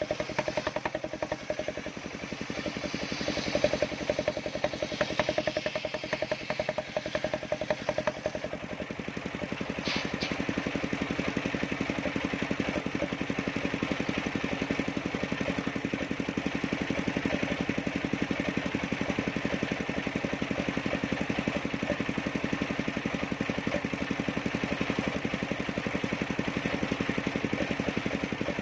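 Engine-driven circular sawmill running with a steady engine drone. It is louder and rougher for the first several seconds, then evens out after a sharp click about ten seconds in.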